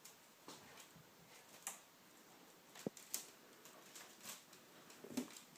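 Australian Shepherds, an adult and a puppy, scrabbling and playing in a wicker dog bed on a tiled floor: faint scattered clicks and scuffles of claws and basket. A brief low sound comes about five seconds in.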